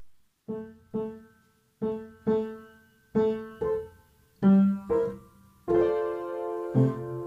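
Slow solo piano music: single notes struck one after another, each ringing out and fading, gathering into a fuller held chord near the end.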